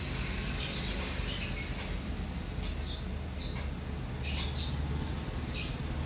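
Greenfinch chick giving short, high squeaky cheeps at irregular intervals as the wounds in its mouth are swabbed with a cotton bud, over a steady low hum.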